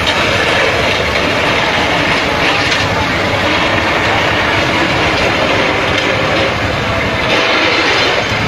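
A box truck running off the road on a burst tyre, making a loud, steady, rumbling rattle.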